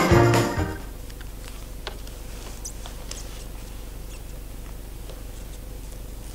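Organ music fades out in the first second. After that come faint scattered clicks and paper rustles as Bible pages and a slip of paper are handled, over a steady low electrical hum.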